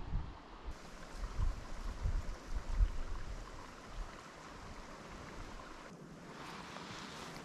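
Small mountain stream running, a steady rushing hiss, with low gusts of wind buffeting the microphone during the first three seconds.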